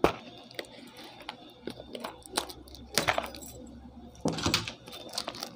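Plastic wrap on a small earbud box being torn open by hand: irregular crinkling and sharp crackles, the loudest right at the start.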